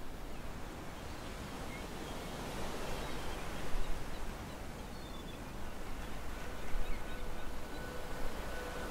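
Outdoor ambient noise with a few faint bird chirps and two louder swells. About six seconds in, a steady held tone fades in and carries on.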